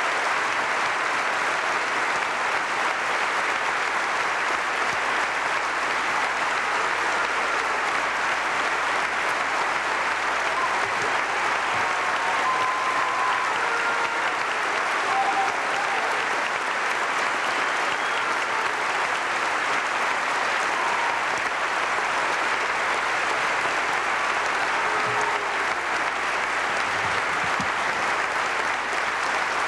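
Large auditorium audience applauding steadily and without a break, a long ovation, with a few voices faintly heard in the crowd.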